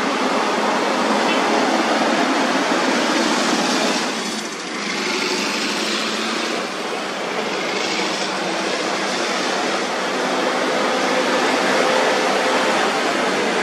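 Heavy diesel tractor-trailers hauling heavy equipment on lowboy trailers rolling past close by, a dense, steady rumble of engines, tyres and trailer. The noise dips briefly about four and a half seconds in, between one truck and the next, then builds again.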